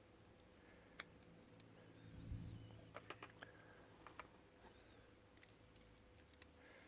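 Faint, scattered small metal clicks and taps as driver pins and springs are loaded into the pin chambers of an old Ilco brass padlock, with a quick cluster of clicks about three seconds in and more near the end.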